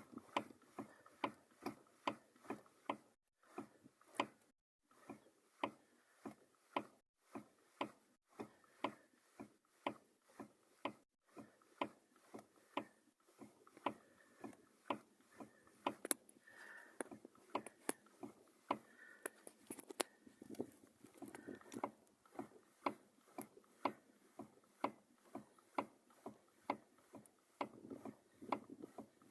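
Lada Granta steering knocking as the wheel is turned: a run of short, sharp knocks, about two a second. The knocking persists despite new tie rod ends, a new steering shaft universal joint and a tightened steering rack, and the owner cannot find where it comes from.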